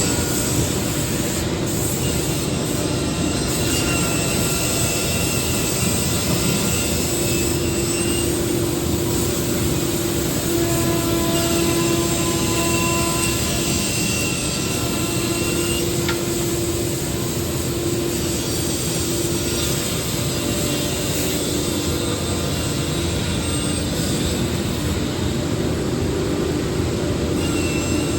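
Four-head 5-axis CNC router running, its spindles cutting wood. It makes a steady, loud machining noise with several whining tones that come and go as the cutters move and load.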